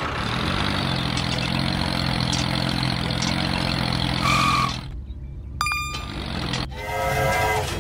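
A steady engine running for the toy tractor for about five seconds, then it cuts off. Near the end a train horn starts blowing, a held chord of several notes.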